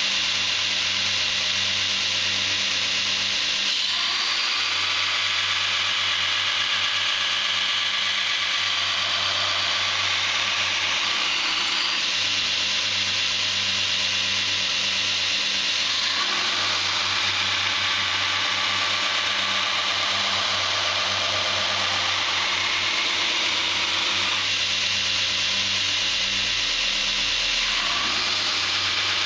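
Belt grinder running with a D2 tool-steel blade pressed against the moving abrasive belt: a steady grinding hiss over the hum of the motor. The grinding sound shifts several times as the blade is moved and repositioned on the belt.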